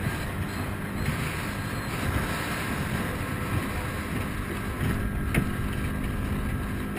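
Small speedboat under way at speed over choppy sea: the engine's drone mixed with wind buffeting the microphone and water rushing past the hull, with one sharp knock about five seconds in.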